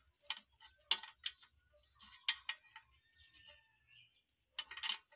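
Irregular light metallic clicks and taps as a replacement oxygen sensor is fitted by hand into the exhaust, with a short cluster of clicks near the end.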